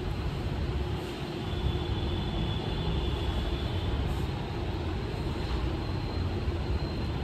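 A steady, low, rumbling noise with a hiss over it, like a fan or machine running.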